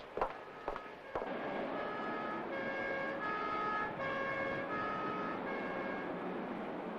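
Steady city traffic noise, with a two-tone emergency siren alternating between a high and a low note about every three-quarters of a second from about two seconds in. A few short clicks come in the first second, before the traffic begins.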